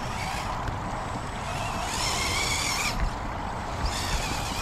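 RC rock crawler's electric motor and gears whining in spurts as it climbs a slippery slope, the whine wavering in pitch and strongest about two seconds in. Under it runs a steady rush of water from a small stream.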